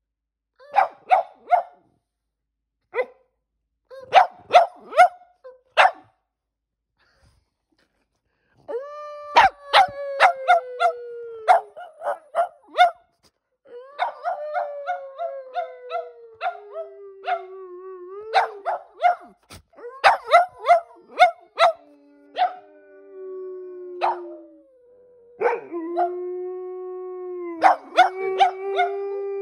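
A Boston Terrier and a German Shepherd–Labrador mix barking in short, sharp bursts, then howling in long notes that slowly fall in pitch, with barks breaking in. Later two howls at different pitches overlap.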